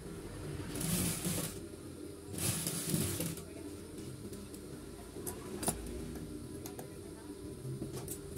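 Fabric rustling in two short bursts as the striped cotton shorts are shifted about at an industrial sewing machine, over a steady low hum. A few sharp clicks follow, the last a snip of scissors trimming thread at the needle near the end.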